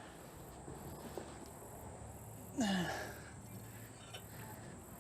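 Insects chirping steadily in the background in a high, regular pulsing pattern, with one short falling vocal sound, like a grunt, about halfway through.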